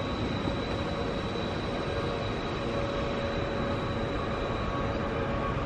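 Diesel-hauled freight train heard before it comes into view: a steady low rumble with a faint steady hum, holding level throughout.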